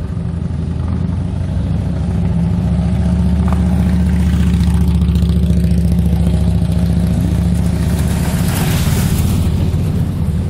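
Motor vehicle engine running steadily at close range, growing louder over the first few seconds, with a brief hiss near the end.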